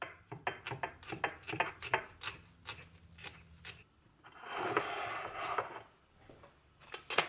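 Table knife sawing through a veggie burger in a wholemeal sandwich thin on a plate: a quick run of crunchy scraping strokes, then a longer scrape about four seconds in, and a couple of clicks near the end.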